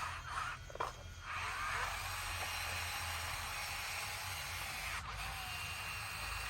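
Bulldozer running with a steady low engine rumble and a high whine whose pitch dips sharply and recovers twice.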